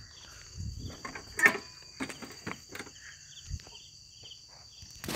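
Crickets trilling steadily, with scattered knocks and rustles close to the microphone; the loudest knock comes about a second and a half in.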